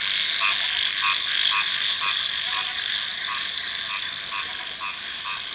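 Frogs calling in a night chorus: a regular croak about twice a second over a steady, high-pitched insect trill.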